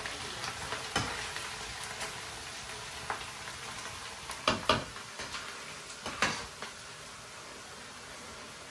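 Finely scraped bitter-gourd peel frying in oil in a pan, a steady sizzle, with a few scrapes and knocks of the stirring spoon against the pan.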